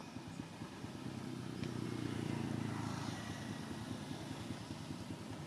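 Low engine hum of a passing motor vehicle, swelling to its loudest about two and a half seconds in and then fading.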